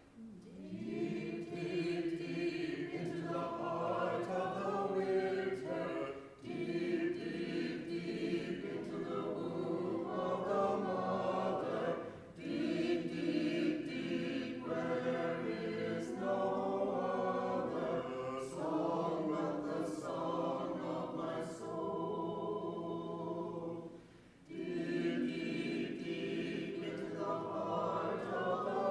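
A small group of mixed voices singing a slow song together, in long phrases broken by short pauses for breath.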